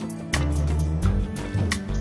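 Background music with a drum beat and deep bass notes.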